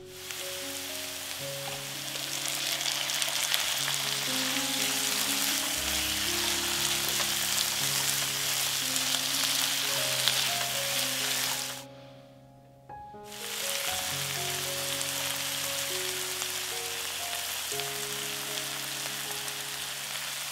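Food frying in oil in a pan, sizzling steadily. The sizzle cuts out for about a second and a half just past the middle, then resumes.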